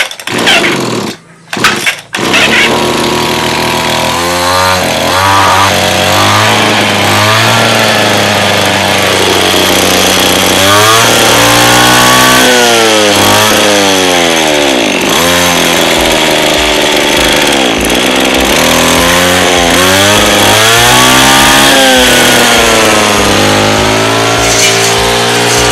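Lawn mower's small petrol engine: a few short bursts, then it catches about two seconds in and runs loudly, its speed dropping and rising again over and over.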